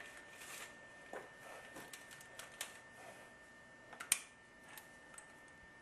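Faint handling clicks and rustles as a steel tape measure is pulled out and laid against the copper pipe to size a piece, with a sharper click about four seconds in.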